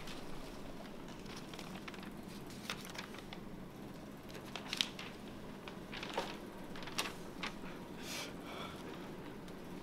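Quiet room tone with a low steady hum, broken by scattered faint clicks and rustles of sheets of paper being handled on school desks.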